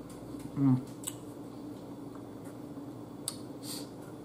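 Sounds of someone eating spaghetti with a fork: a brief closed-mouth 'mm' hum under a second in, then a few small clicks of the metal fork against the plate and a wet smack of chewing. A faint steady low hum runs underneath.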